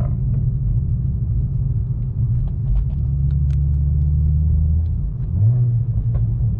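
BMW 335i's N54 inline-six with a single-turbo conversion, heard from inside the cabin as a low engine and exhaust rumble while cruising slowly. The drone deepens for a couple of seconds in the middle, then the engine note rises a little a second later.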